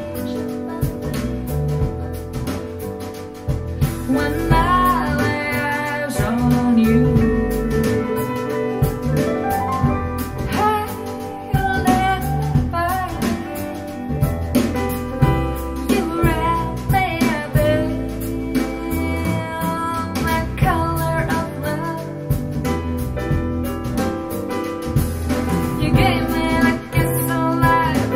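Recorded song played back through JBL L100 Classic 75th loudspeakers and picked up by microphones about ten feet away across the room: a live recording of a female singer with instruments and a full bass line.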